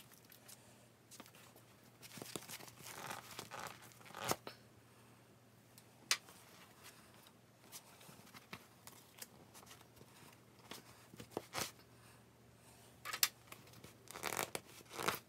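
Carbon crossbow bolts being worked out of a dense foam target and the target handled, with tearing and scraping sounds in two spells, about two seconds in and near the end, and a few sharp clicks between.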